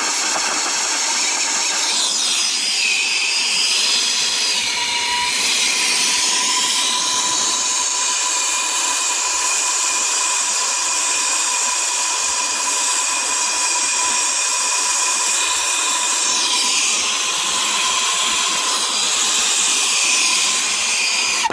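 Brazing torch burning with a steady hiss while joining the copper refrigerant lines of a replacement HVAC compressor, with a thin whistling tone running through it; it cuts off suddenly at the end.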